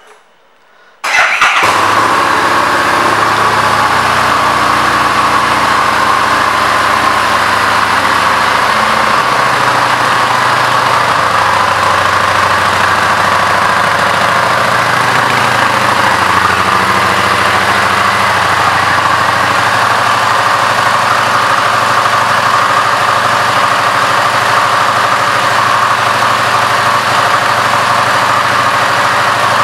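2017 Harley-Davidson Street Rod 750's liquid-cooled V-twin, fitted with a Vance & Hines aftermarket exhaust, starts up about a second in. It then settles into a steady idle.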